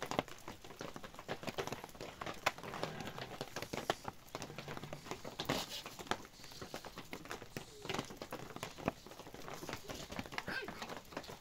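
Sleet and wet snow pattering close by: a dense, irregular run of small ticks and taps.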